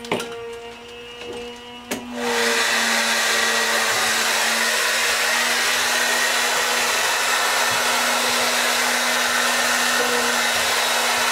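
A couple of sharp clicks, then about two seconds in a Graco ProShot cordless airless paint sprayer starts up and runs steadily and loudly, its pump buzzing and the paint hissing out of the tip as it sprays a door.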